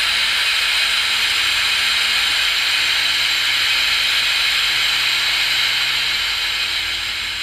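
Small loudspeaker of a DIY digital FM radio kit giving out a loud, steady hiss of static, tuned to 87.0 MHz with no station and no antenna fitted. The static gets a little quieter near the end as the volume is stepped down.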